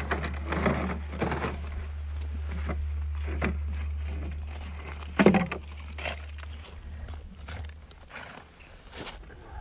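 Fishing gear being handled and unpacked from a plastic sled on the ice: scattered clicks and rustles, with one loud thump about five seconds in. A steady low rumble runs underneath and fades out near the end.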